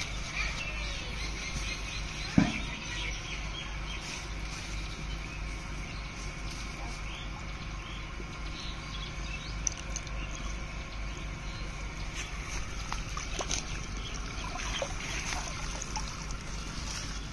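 Pond water trickling and sloshing as a wet cast net is hauled up out of the water by its rope, with one sharp knock about two and a half seconds in.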